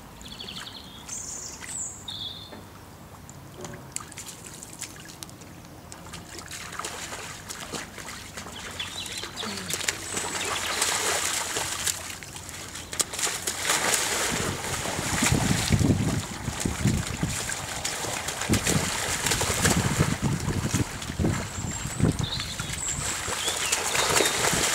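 White lion cubs splashing and wading through shallow muddy flood water. A few bird chirps come about a second in, and the splashing grows louder and more vigorous over the second half.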